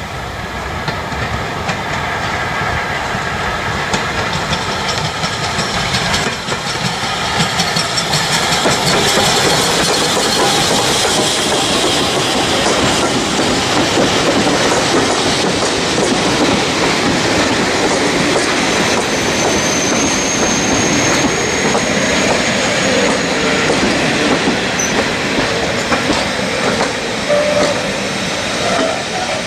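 Ex-LMS Stanier Class 5 'Black 5' steam locomotive and its coaching stock passing close by. The sound grows louder about seven seconds in as the train comes alongside, then the coaches roll past with their wheels clicking over the rail joints.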